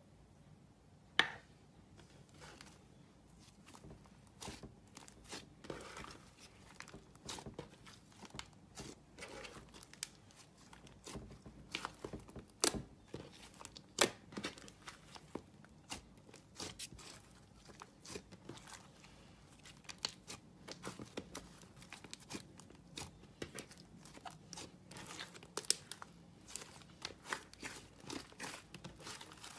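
Slime being squeezed and pulled by hand, giving a dense, irregular run of small sticky crackles and pops, with a few sharper snaps.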